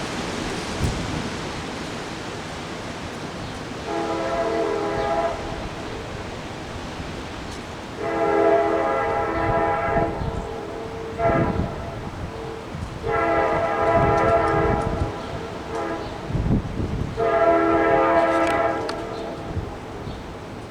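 Locomotive air horn sounding five blasts, a multi-note chord: a shorter blast about four seconds in, then long, short, long, long. Wind buffets the microphone throughout.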